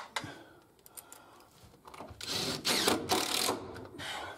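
Cordless drill driving a screw into the stair timber in one burst a little over two seconds in, after a near-quiet pause; a click near the start.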